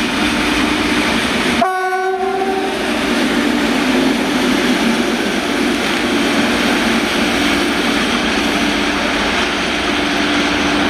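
Class 232 'Ludmilla' diesel locomotive running light past, its V16 diesel engine droning steadily. It gives one short horn blast about two seconds in.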